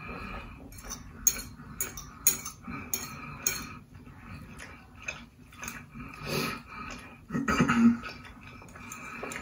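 Metal fork clinking and scraping on a plate of food as bites are picked up, with a string of light, quick clinks over the first few seconds.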